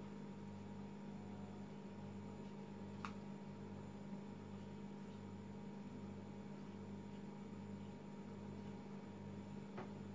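Steady low electrical hum with hiss, its lowest part throbbing about twice a second, and two faint ticks, one about three seconds in and one near the end.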